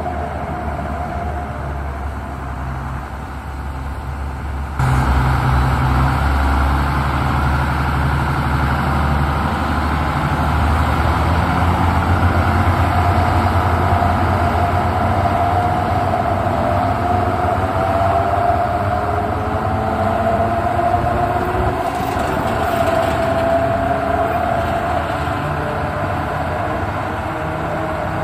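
Small diesel switcher locomotive M-7's engine running close by, jumping louder about five seconds in as it throttles up, with a high whining tone over it that wavers slightly in pitch.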